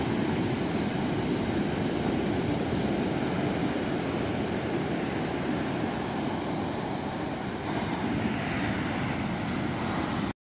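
Steady low roar of heavy typhoon surf breaking on a beach; it cuts off abruptly near the end.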